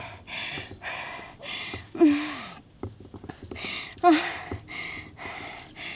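A woman panting hard after an all-out sprint, quick heavy breaths about two a second, with two moans falling in pitch about two and four seconds in.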